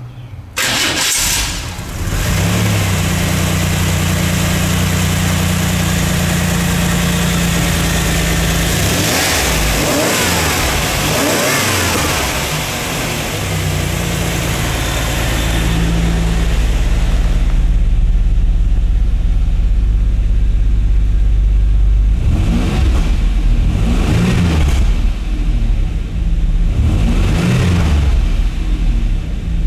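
A 1991 Chevrolet Camaro's 3.1-litre V6 idles steadily, with a couple of throttle blips about ten seconds in. Later, heard from inside the car, it is revved three times, each rev rising and falling back to idle.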